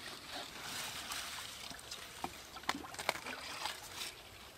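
Leafy Chinese greens being picked by hand: leaves rustling softly, with a scattering of short, crisp snaps and clicks from stems and handling.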